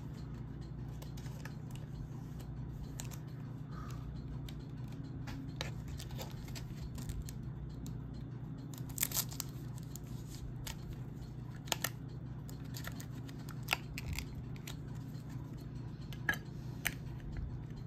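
Trading cards and hard plastic toploader holders being handled: scattered light clicks and rustles, a few sharper clicks in the second half, over a steady low hum.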